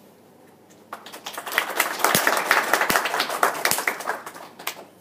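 Audience applauding: a patter of hand claps starts about a second in, builds to a peak, and dies away just before the end.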